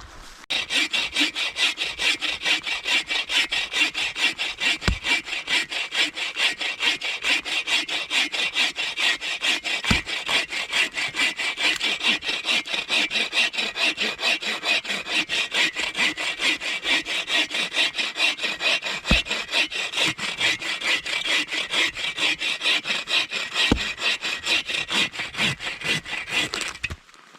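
Hand saw cutting through wood in steady, rapid back-and-forth strokes, about four a second, stopping just before the end.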